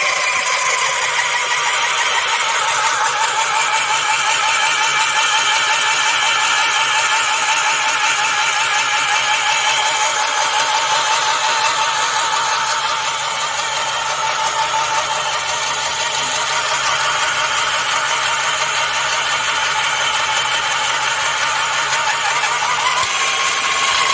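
Battery-powered rail drilling machine running steadily as its cutter bores a hole through a steel rail, a loud whining motor over a wavering grind. Near the end the pitch shifts slightly upward.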